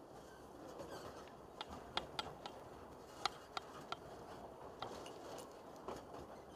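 Narrow-gauge railway carriage rolling along: a faint low rumble of the running gear with a scattering of sharp, irregular clicks and knocks.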